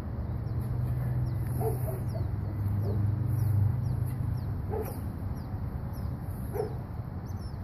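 A small dog barking a few short times, well spaced, over birds chirping and a low steady hum.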